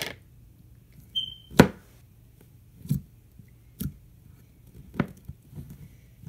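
A plastic slime container being handled and opened: a few separate light knocks and clicks of plastic on a tabletop, the loudest about one and a half seconds in, with a brief high squeak just before it.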